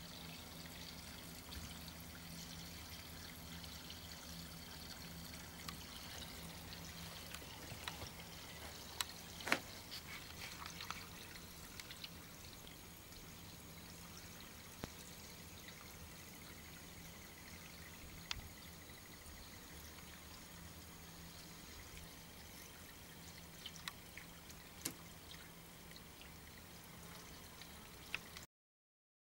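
Water pouring steadily from a raised, planted bog-filter box over a spillway into a formal garden pond, with a few short sharp clicks scattered through; the sound cuts off suddenly near the end.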